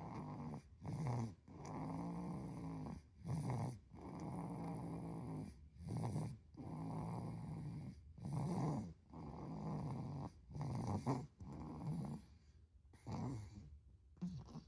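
Really loud snoring in a steady rhythm, about six breaths roughly every two and a half seconds. Each breath is a longer, drawn-out rattle followed by a shorter, louder one.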